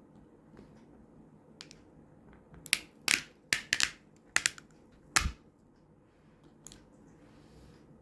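Sharp sticky pops and clicks from tacky stickers. After a quiet start they come in a quick cluster of about eight, from about three seconds in to just past five seconds, with a few faint ticks afterwards.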